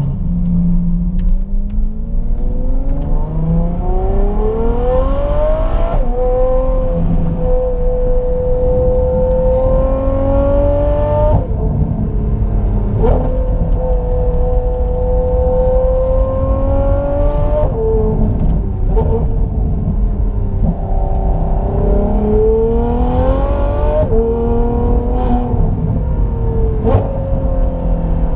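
Ferrari F12 Berlinetta's naturally aspirated V12 through an IPE Innotech valved exhaust, heard from inside the cabin under hard acceleration. The revs climb through the gears and fall sharply at each upshift, with a short crack at each shift.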